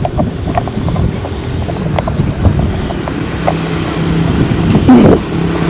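Wind buffeting the microphone over street traffic noise, with scattered clicks. A vehicle engine's steady hum grows in the last second or two.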